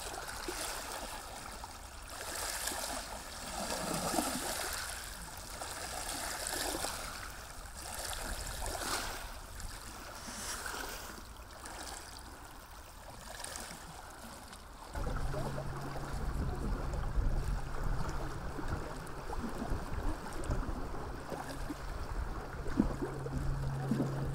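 Lake water lapping and splashing at the surface. About halfway through, a steady low hum with a low rumble comes in and stays.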